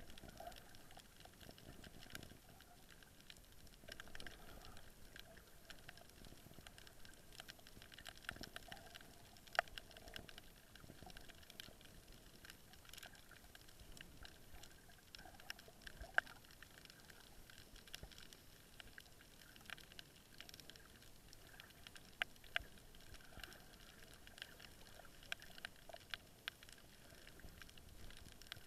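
Faint underwater crackle of irregular sharp clicks, typical of snapping shrimp on a coral reef, with a few louder single clicks scattered through it over a faint steady hiss.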